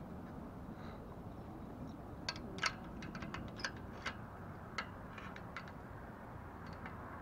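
Scattered small metallic clicks and taps as a steel clamp and bolt are fitted around a steel trampoline enclosure pole, about a dozen irregular ticks over steady background noise.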